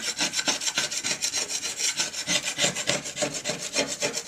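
Hand scraper rasping over a mahogany rudder in quick, short, repeated strokes, lifting old varnish off the wood.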